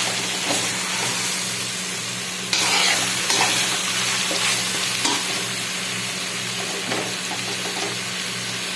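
Chicken and green papaya pieces sizzling as they fry in a pot, with the occasional clack of a spoon stirring them. The sizzle grows louder for about a second, about two and a half seconds in.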